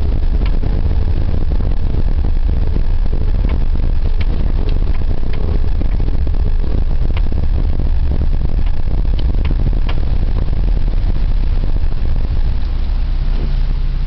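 Daewoo Lanos under way, a steady low rumble with sharp knocks from the suspension scattered irregularly through it: the suspension knock the owner is documenting.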